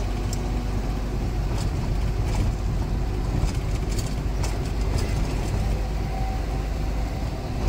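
Steady low rumble of a motor vehicle engine running, with a few faint clicks.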